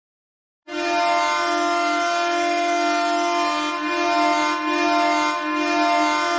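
Ottawa Senators' hockey goal horn sounding one long, steady blast. It starts abruptly a little under a second in, after a moment of silence, and wavers slightly a few times as it holds.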